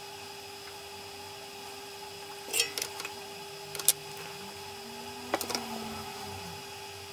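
Steady electrical hum with three small clusters of sharp clicks and taps, the sharpest about four seconds in: small tools and a thin wire being handled at the clamped memory stick during hand soldering.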